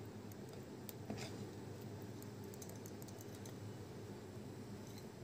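Faint, irregular light clicks and taps of a spoon against the bowl as a potato ball is turned in thick gram-flour batter, over a low steady hum.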